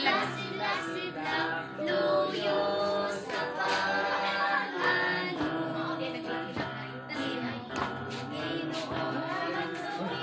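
A group of children singing an action song together over backing music.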